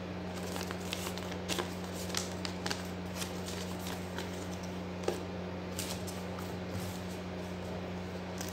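Paper instruction sheets being unfolded and handled: irregular rustling and crinkling with a few light taps.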